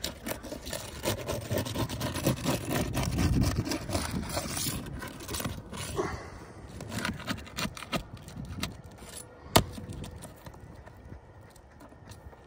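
Flat metal shingle-removal bar scraping and prying under three-tab asphalt shingles to break their seal and release them: rough scraping with many small clicks and crackles, and one sharp snap about two-thirds of the way through.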